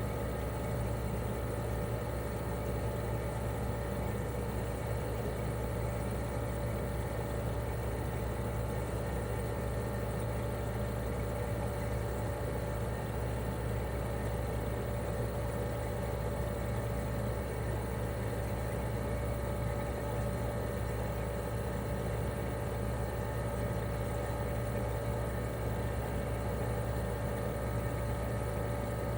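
Toshiba RAS-285BAD air-conditioner outdoor unit (1997, twin-rotary compressor, R22) running steadily in cooling mode: an even hum from the inverter-driven compressor with a steady higher tone over it, plus the rush of the propeller fan.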